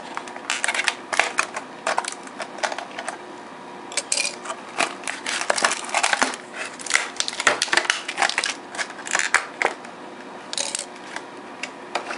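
Plastic wrapping and foam packaging crinkling and crackling in irregular bursts as they are handled and pulled apart.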